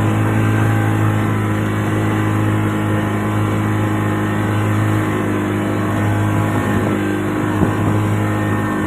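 Boat engine running at a steady speed, a constant drone with a strong low hum, with a brief thump near the end.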